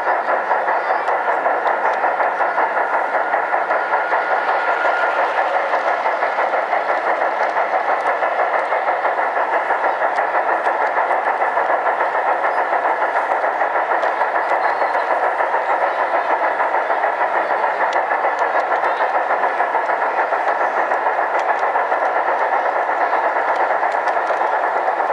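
Garden-scale (G-scale) model train running along its track, heard from on board: a steady hum of its electric motor and gears, with the wheels rolling on the rails.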